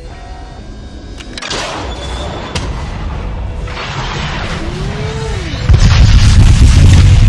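Edited sound-effect audio that grows steadily louder, with noisy swells and a few sharp cracks. About six seconds in, a heavy, deep boom comes in and keeps rumbling.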